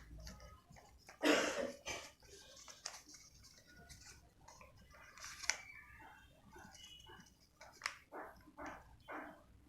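A dog barking, several short separate barks, the loudest about a second in.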